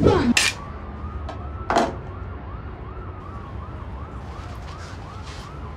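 Faint emergency-vehicle siren, wailing up and down about two and a half times a second, over a low steady rumble. Two short sharp sounds come just after the start and about two seconds in.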